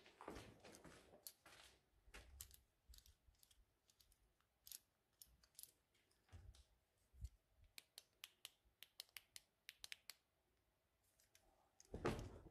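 Faint footsteps on a gritty, debris-covered floor: many small, sharp, irregular crunches and ticks of grit and rubble under the shoes, with a few soft low thuds and a louder scuff near the end.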